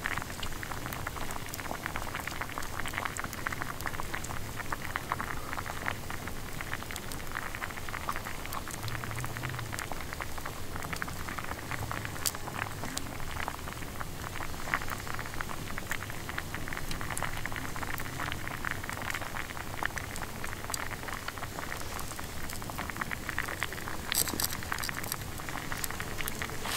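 Campfire crackling and popping, with steady sizzling from a frying pan set over the flames.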